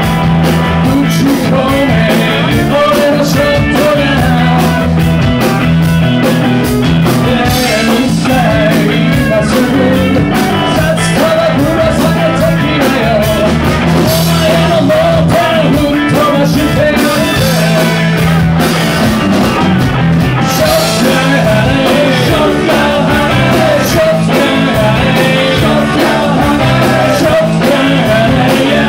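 Live rock band playing: electric guitars and drum kit, with a lead vocal.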